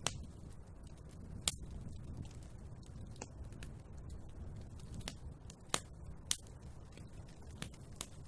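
Wood fire burning in a fireplace: a low steady rumble with scattered sharp pops and crackles, about ten in all, the loudest about a second and a half in and twice near six seconds.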